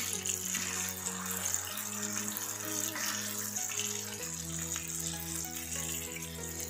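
Chicken pieces deep-frying in hot oil, a steady sizzle, over background music with sustained low chords that change every couple of seconds.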